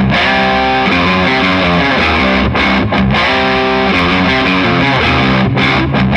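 Old-school heavy metal: a distorted electric guitar riff of held, changing notes, with short stop-breaks about two and a half seconds in and again near the end.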